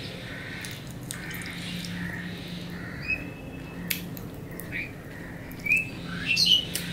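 Close-up chewing and mouth sounds of a man eating fried rice by hand, over a steady low hum. In the second half a bird calls several times with short chirps that glide up and down, the loudest about six seconds in.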